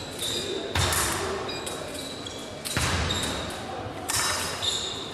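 Épée fencers' feet stamping on the piste during a bout: three heavy thuds, roughly a second and a half to two seconds apart, amid short high squeaks.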